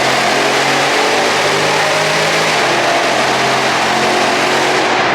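Car engine and exhaust under way at fairly steady revs, with the engine note stepping up and down in pitch a few times over constant road and wind noise.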